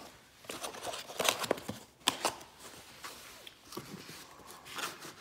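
Handling noise: a small cardboard box being fitted back into a padded soft case, with rustling, scraping and several sharp knocks, the loudest about two seconds in.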